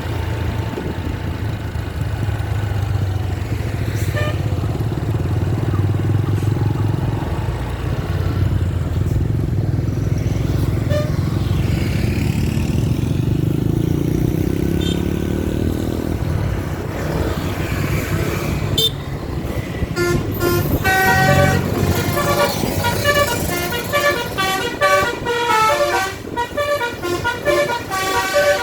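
A bus engine running with a low rumble, its pitch rising near the middle. Then, about two-thirds of the way in, a basuri telolet multi-tone bus horn plays a fast, choppy melody of short notes that switch rapidly between pitches.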